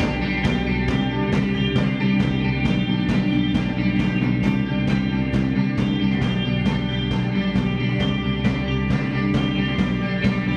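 Live instrumental rock band playing: guitars holding sustained chords and lines over a drum kit, with a steady cymbal beat of about three strokes a second.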